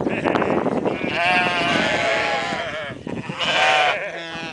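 Sheep bleating: a long wavering bleat from about a second in, then a shorter one near the end.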